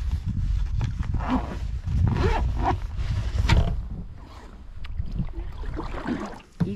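Canoe being paddled across choppy water: paddle strokes swishing and water slapping the hull, about once a second, over a heavy low rumble of wind on the microphone.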